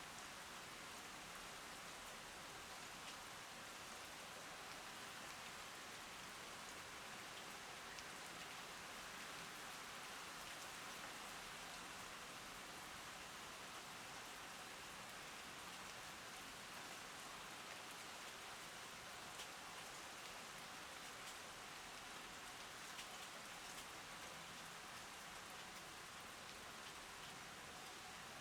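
Heavy rain falling steadily on garden plants, an even hiss with scattered sharper drop ticks.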